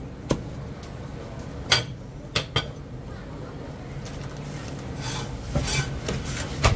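Chinese cleaver chopping a roast duck on a thick wooden chopping block: a few sharp, irregularly spaced knocks as the blade goes through and strikes the wood, more of them near the end, over a low steady background hum.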